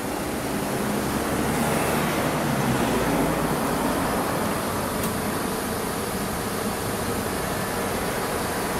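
Street traffic noise: a vehicle's engine passing, loudest about three seconds in, then a steady traffic hum.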